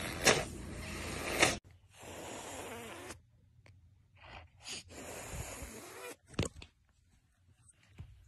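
Serval hissing with its mouth open, a harsh breathy hiss broken by two sharp spits, cut off abruptly about a second and a half in. Quieter breathy hisses follow, one of about a second and one of nearly two seconds, and there is a short sharp puff near the end.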